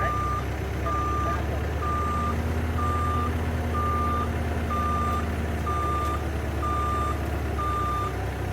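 Heavy work machine's backup alarm beeping steadily, about once a second at one pitch, over the low rumble of its engine running.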